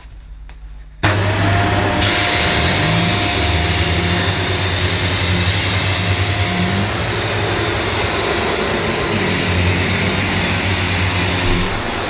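Shark Lift-Away TruePet corded upright vacuum switched on about a second in, its motor whine rising briefly and settling to a steady pitch. It then runs steadily, getting brighter a moment later, while it is pushed over thick plush carpet.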